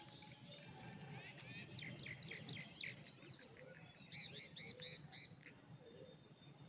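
A bird chirping faintly in two quick runs of short high notes, the first about a second and a half in and the second about four seconds in.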